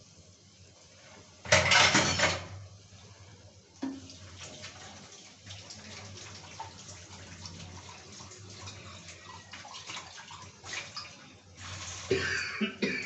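Chickpea curry simmering in a frying pan on a gas stove, a steady faint bubbling hiss with fine crackles. Two louder rushing noises of about a second each cut in, one near the start and one near the end.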